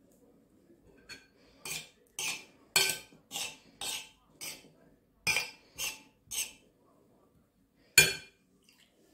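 A metal spoon scraping through damp steamed couscous against a ceramic plate: about ten quick strokes, roughly two a second, as water is stirred into the couscous. Near the end comes one louder, sharper clink.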